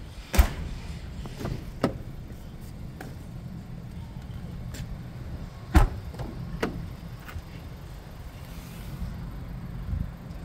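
Audi A3 tailgate shut with a solid thump about half a second in, then a few light clicks and knocks and a second solid thump near six seconds in, over a steady low hum.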